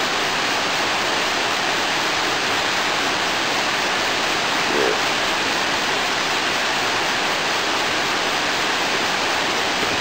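Steady rush of flowing river water, an even hiss that holds without a break.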